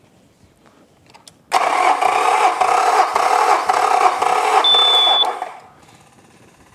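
The electric starter cranks a Yamaha F225's V6 four-stroke engine over for about four seconds with a regular pulsing, and the engine turns over without firing. The fuel injection is unplugged and the throttle held open, because this is a compression test on one cylinder. A brief high squeal comes near the end of the cranking.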